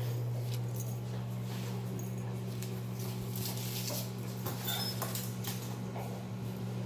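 Microwave oven running with a steady low hum, with faint small clicks and rustles over it.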